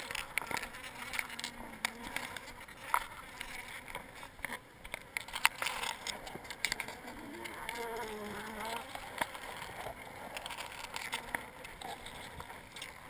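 Honey bees buzzing as they fly close past the microphone, the buzz rising and falling in pitch as they come and go. Scattered sharp clicks and crackles run through it as the honeycomb is cut loose and handled.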